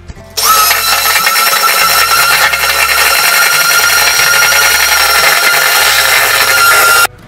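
Electric hand mixer running at a steady speed with a constant whine, its wire beaters whipping room-temperature butter in a bowl to soften it. It switches on just after the start and cuts off abruptly just before the end.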